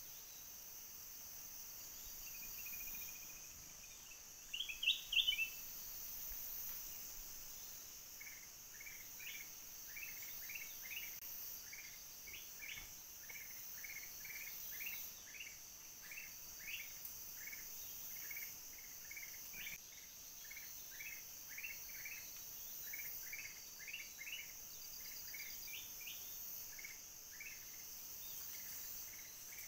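A wild bird calling over a steady drone of forest insects: a quick, loud burst of notes about five seconds in, then from about eight seconds a long run of short, rising, whistled notes, roughly two a second.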